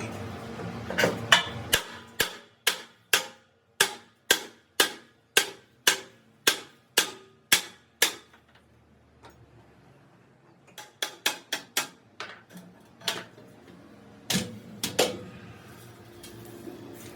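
Hammer blows on metal in a steady run, a little under two a second, then after a pause a quicker series of lighter taps and a few last heavier strikes.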